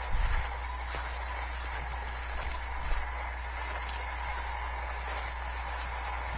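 A steady, high-pitched chorus of insects in tall grass, with a low, even rumble underneath.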